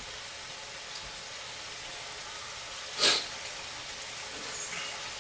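Ribeye steak sizzling steadily in a frying pan, with one brief, loud hiss about three seconds in.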